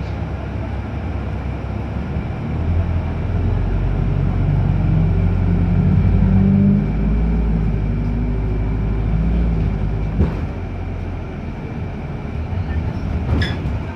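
Wrightbus New Routemaster diesel-electric hybrid bus heard from inside its upper-deck rear cabin. The engine drone swells louder from about two and a half seconds in and eases back after about seven seconds, over a steady thin high whine. There are two short knocks near the end.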